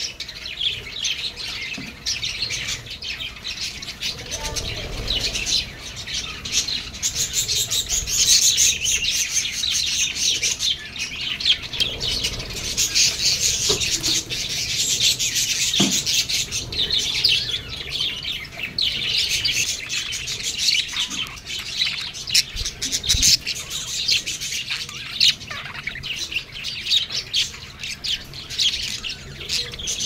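A flock of budgerigars chattering without pause: a dense, steady mass of overlapping chirps and warbles.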